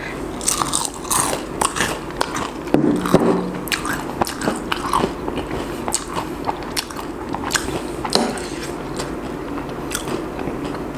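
Close-up biting and chewing of crispy fried food dipped in cheese sauce, with many irregular crunching crackles. A short hum from the eater comes about three seconds in.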